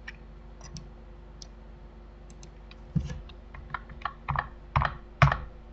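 Computer keyboard keys and mouse buttons clicking: a few light clicks, then a quick run of louder taps starting about three seconds in. A faint steady hum sits underneath.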